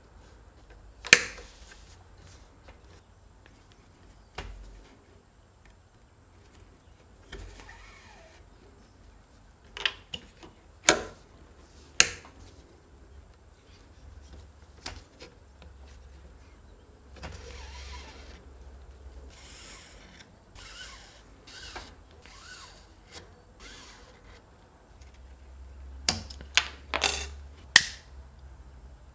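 Hand-stitching a leather wallet: sharp clicks and knocks of the work being handled in a wooden stitching clamp, with soft rasping stretches as thread is drawn through the stitch holes. Near the end a lighter is struck several times to melt the thread ends.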